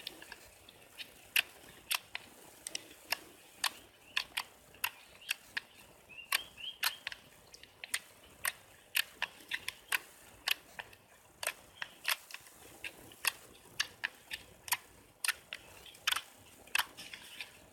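Slime being pressed and worked by hand, giving sharp, irregular clicking pops, about two a second.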